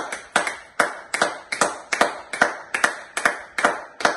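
Two people clapping their hands in a steady rhythm, about two and a half claps a second, the two pairs of hands sometimes landing slightly apart.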